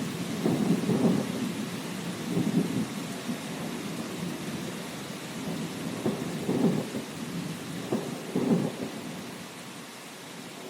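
Thunder rumbling in several low rolls over a steady hiss of rain, the rumble dying away near the end.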